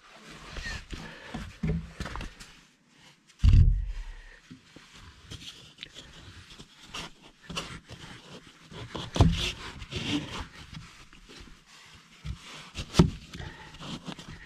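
Irregular knocks, bumps and scraping against wooden framing as someone moves and works in a cramped space under a floor. There is a heavy low thump about three and a half seconds in and sharp knocks near nine and thirteen seconds.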